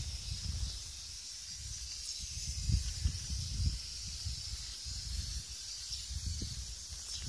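Wind buffeting the microphone in uneven low rumbles that swell a few times, over a steady high hiss.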